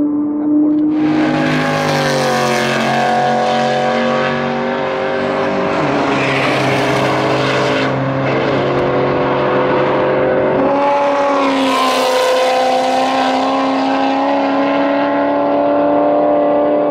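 Track-day cars passing at speed, engines running hard, in three waves that swell and fade, with the engine pitch dropping as the cars go by.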